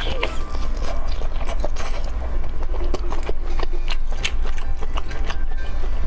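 Close-miked biting and chewing of spicy sauce-coated skewered meat: irregular wet mouth clicks and smacks over a steady low hum.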